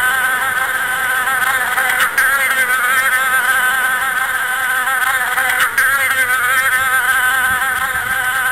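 Loud, continuous buzzing of a flying insect, wavering in pitch, with two brief breaks.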